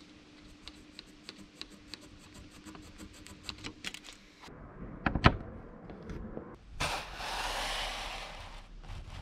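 Woodworking handling sounds: a run of light, evenly spaced ticks, then a sharp knock about five seconds in and a scrape lasting about two seconds, as an aluminium track-saw guide rail is set down and slid on an oak board.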